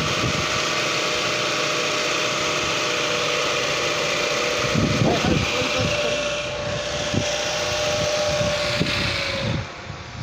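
Car's four-cylinder engine idling under the open hood, a steady running sound with a steady whine over it; the sound drops away sharply near the end.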